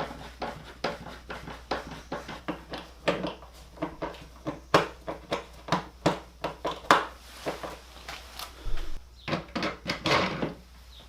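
Clicks and knocks of a new doorknob's parts being handled and fitted into a wooden door, irregular and several a second, with a few louder knocks in the middle and near the end.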